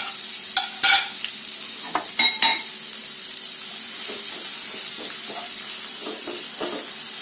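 Chopped onion sizzling in hot butter and oil in a nonstick frying pan, stirred with a wooden spatula. A few sharp clatters and scrapes come in the first two and a half seconds, then a steady sizzle with soft scraping of the spatula.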